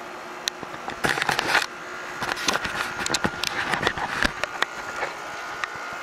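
Window air conditioner running with a steady hum. Over it come irregular clicks, crackles and rustles, bunched about a second in and scattered after.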